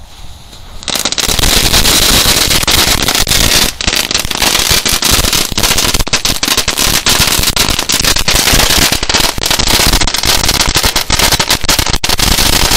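A smatterband (crackling firecracker string) going off: about a second in it breaks into a dense, unbroken stream of rapid small bangs that keeps going without a pause.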